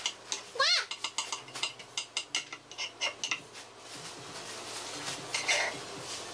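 Kitchen knife chopping an onion on a plastic cutting board, a run of quick taps about three or four a second that stops a little past halfway. Under a second in, a cat gives one short meow that rises and falls in pitch. Near the end comes a brief scrape as the chopped onion is pushed off the knife.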